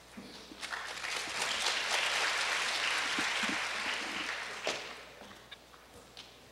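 Audience applauding, building about a second in and dying away about five seconds in, with a single sharp knock as it fades.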